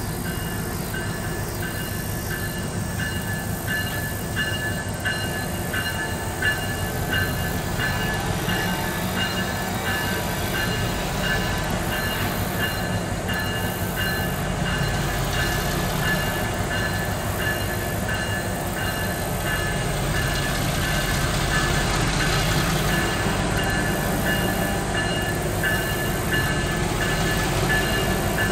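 Diesel switcher locomotive, an EMD MP15AC, running slowly across a steel truss bridge: a steady low engine rumble with wheel and rail noise, growing a little louder near the end. A high ringing tone pulses steadily through it.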